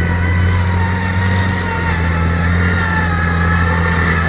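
Small farm tractor's engine running steadily under load as it hauls a cart of rice sacks, with a thin whine above it that sinks slightly in pitch.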